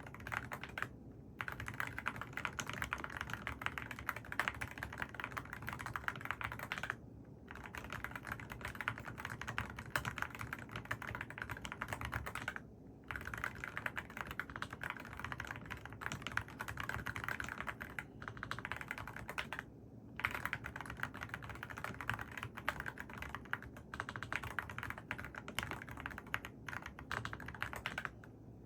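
Mechanical keyboard with AKKO Rosewood switches being typed on rapidly, a dense stream of key clacks with a few brief pauses.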